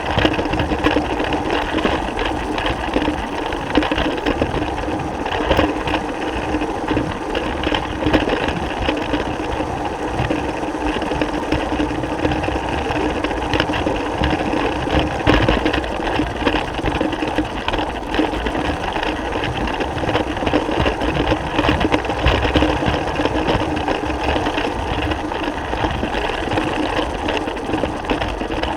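Small electric motor of a Lego train running steadily, a continuous mechanical whir of motor and gears as the train travels along plastic track.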